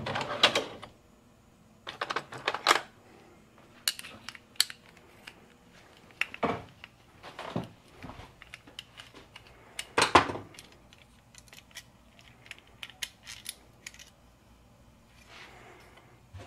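Metal hand tools clinking and clattering as they are handled in a tool chest and on a workbench: a string of separate clicks and knocks with short quiet gaps between them.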